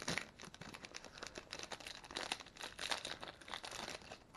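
Clear plastic packaging bag crinkling and crackling as a pen is pulled out of it by hand. The crackle stops about four seconds in.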